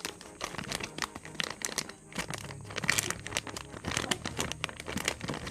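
Toy packaging being handled and opened: a dense, irregular run of crinkles and crackles.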